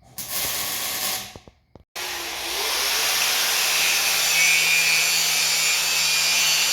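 Angle grinder working steel: a short burst, then after a cut a long steady run of grinding with a constant motor hum underneath.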